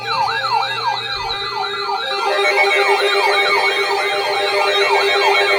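Electronic siren-like alert tone that starts abruptly: a falling pitch sweep repeating about three times a second over steady held tones, getting louder about two seconds in.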